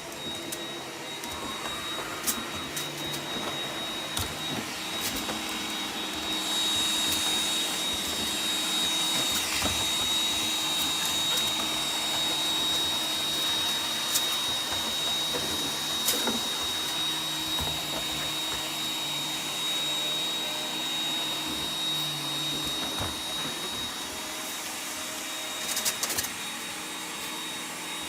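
Roomba robot vacuum cleaner running: a steady motor and brush hiss with a constant high whine, growing louder about six seconds in and easing off again near 23 seconds, with a few sharp knocks along the way.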